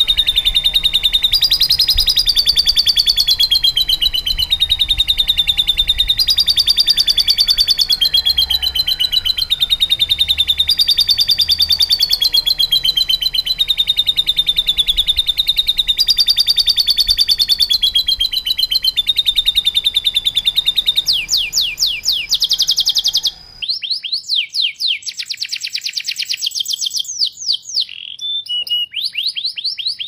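Domestic canary singing one long, unbroken song of very fast trills, the pitch shifting every couple of seconds. About 23 seconds in, the song cuts abruptly to another canary singing fast down-sweeping notes and trills over a quieter background.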